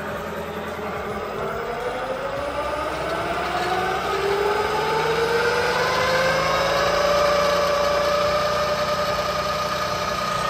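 Velvet Drive 5000 marine transmission turning on an electric-motor test dyno in left-hand rotation, pumping fluid through a cooler flow gauge. A whine rises in pitch as it spins up over the first several seconds, getting louder, then holds steady.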